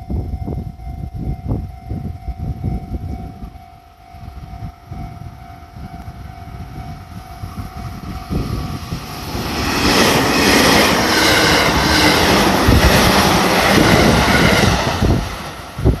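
Level crossing warning alarm ringing with a steady tone. About nine seconds in, an electric local train of 313 series and 211 series cars runs through the crossing with loud wheel and rail noise for several seconds.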